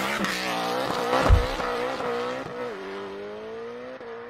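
Logo sound effect of a revving race-car engine, gliding up and down in pitch, with a deep boom about a second in. It then settles into a steadier note that dies down toward the end.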